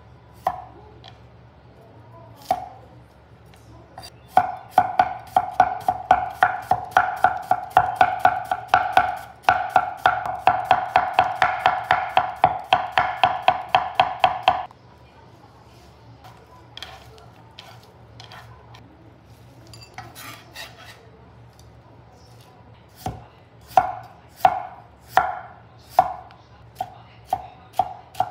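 Kitchen knife chopping on an end-grain wooden cutting board. First come fast, even strokes, about four or five a second, thinly slicing a cucumber, each a short knock with a slight ring. After a quieter stretch of a few light taps, slower single chops follow near the end, about one and a half a second.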